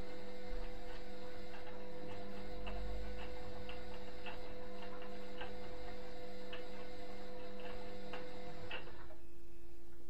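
Indesit front-loading washing machine's drum motor running with a steady hum and a regular clicking about twice a second. About nine seconds in the motor cuts off, leaving only a faint steady hum: the drum pausing in its wash tumble.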